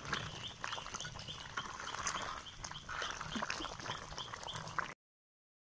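Crab gravy bubbling at the boil in a pot over a wood fire, a steady crackling hiss with scattered pops. Over it a bird chirps, a short high call repeating about three times a second. Everything cuts off suddenly near the end.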